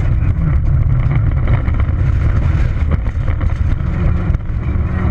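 Peugeot 206 XS rally car's engine running hard under load, heard from inside the cabin, with many short clicks of gravel striking the car as it drives a loose dirt road.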